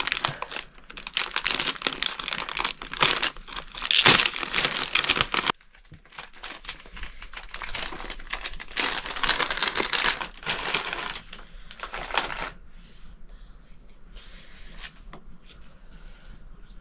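Crinkling and crumpling of something being handled, in quick dense bursts with some tearing, loudest about four seconds in. It breaks off abruptly after about five and a half seconds, resumes, then thins to faint scattered crackles about twelve seconds in.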